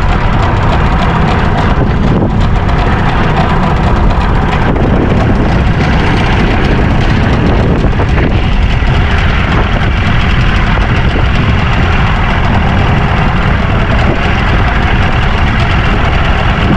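Small fishing boat's engine running steadily at low speed, mixed with wind on the microphone.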